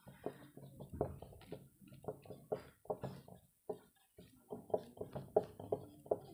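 Marker writing on a whiteboard: a quick, irregular run of taps and short scrapes as letters are written, with a brief pause in the middle.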